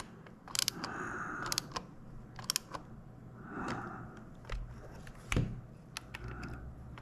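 Scattered small clicks and scrapes of a Logitech Extreme 3D Pro joystick's plastic parts and screws being handled and screwed together.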